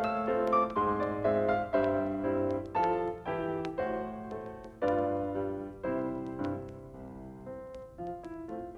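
Solo piano music: struck chords and a melody line, growing softer over the second half.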